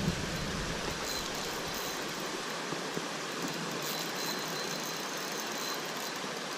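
Steady rushing noise of water, even and unbroken, with no distinct events.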